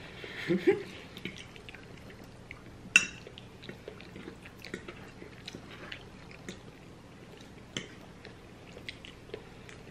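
People chewing pasta, with small scattered clicks of metal forks on plates and one sharp fork clink about three seconds in. Near the start a brief vocal sound is the loudest thing.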